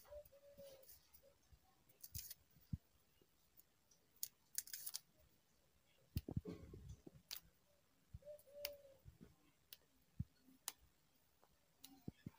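Faint rustling and snapping as green garlic plants are cleaned by hand, yellow leaves and dry bits pulled off the stalks, with scattered sharp clicks. A soft thump about six seconds in, and a short faint tone twice, near the start and about eight seconds in.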